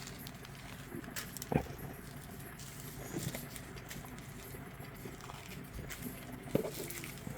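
Quiet handling of small plastic bead packets: light clicks and soft rustles, with a sharper knock about a second and a half in and another near the end.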